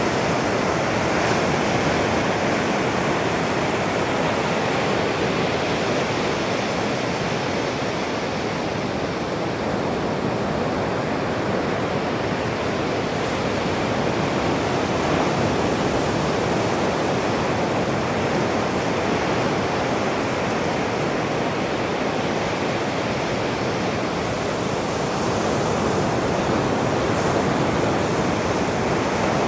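Ocean surf breaking and washing up a sandy beach: a steady rushing sound that eases slightly partway through and swells again as the next waves come in.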